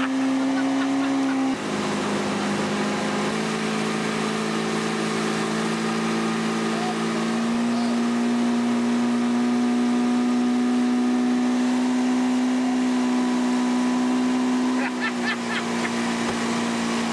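Johnson outboard motor running at planing speed while towing a tube, a steady drone over the rush of water and wind. Its pitch drops about a second and a half in, rises again about halfway through and dips slightly near the end as the throttle is eased and opened.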